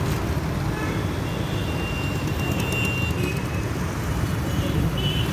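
Busy city street traffic: a steady, dense rumble of engines and tyres. A few brief high-pitched tones sound over it, one held for more than a second in the middle.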